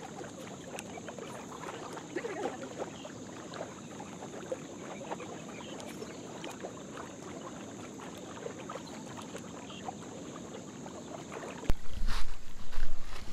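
Water of a river lapping against a rocky bank, a steady soft wash with a few small ticks over a thin, steady high hiss. About a second and a half before the end, loud wind rumble on the microphone takes over.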